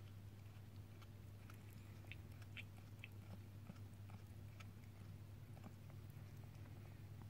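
Mother cat faintly chewing and licking, with soft wet clicks and smacks, as she eats the afterbirth just after giving birth. A steady low hum runs underneath.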